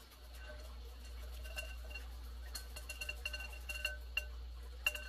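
Handheld metal rasp grater grating garlic over a bowl: scattered light metallic clicks and clinks, each ringing briefly, coming more often in the second half, with the sharpest one near the end.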